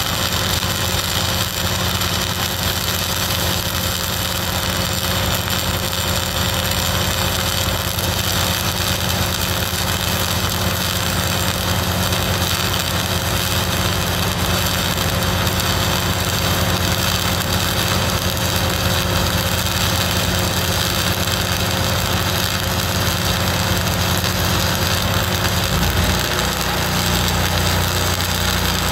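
Self-shielded flux-cored welding arc on 1/16-inch XLR8 wire, crackling steadily through one long continuous pass, with the engine of a Lincoln 305D engine-driven welder running underneath. About three seconds before the end the low engine note shifts.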